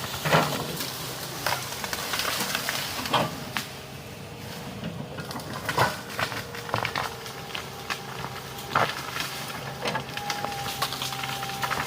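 Komatsu excavator working: a steady engine and hydraulic whine, broken by irregular sharp knocks and clanks, about eight of them, some spaced a second or more apart.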